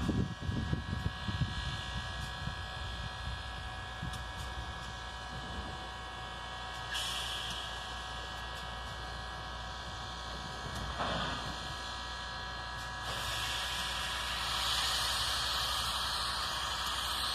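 1925 Baldwin 2-8-0 steam locomotive at work, with a steady hiss of steam over a faint hum and an uneven low rumble in the first couple of seconds. The hiss grows louder about thirteen seconds in and again a couple of seconds later, as steam blows from the locomotive's lower end.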